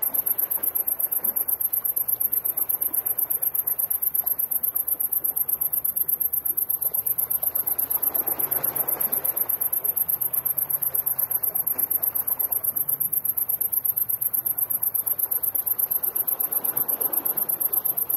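Crickets chirping in a high-pitched, rapid, even pulse, starting abruptly: the stock 'crickets' sound effect for boredom and nothing happening. A faint low haze of sea and wind lies beneath.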